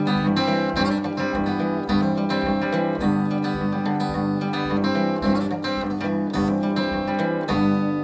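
Acoustic guitar played solo, a steady rhythm of strummed chords as an instrumental outro, with a final chord struck near the end and left ringing.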